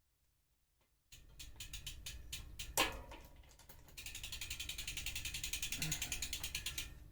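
A bicycle's rear freehub ratchet clicking as the wheel and drivetrain are turned: a few uneven clicks and one sharp click, then a fast, even ticking for about three seconds.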